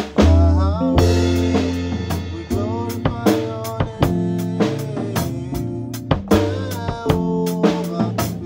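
Live gospel band playing: a drum kit beating out a steady groove with kick, snare and rimshot strokes under sustained keyboard chords and bass, with a man singing over it in phrases.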